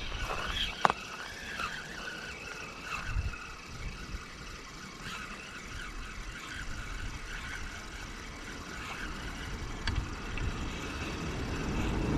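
Gusty wind rumbling on the microphone, with a thin wavering high whistle over it and a single sharp click about a second in.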